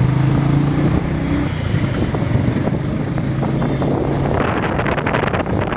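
Motorbike riding along a road, with steady engine and road noise and wind buffeting the microphone. A steady engine hum stands out for the first second and a half, and the wind buffeting grows rougher about four seconds in.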